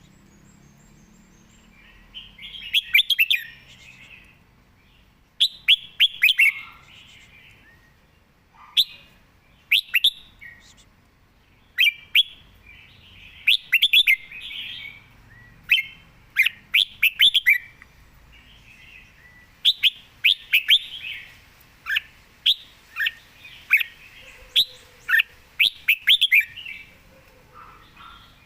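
Red-whiskered bulbul singing: short, bright phrases of a few quick notes, repeated every couple of seconds.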